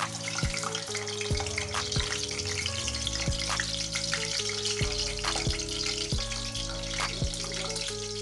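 Sausages deep frying in hot oil, with a steady sizzle and crackle.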